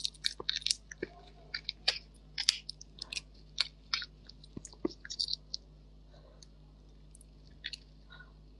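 Raw red shrimp being peeled by hand: the shell and head pulled apart with a run of small, irregular crackles and clicks, pausing for a couple of seconds past the middle.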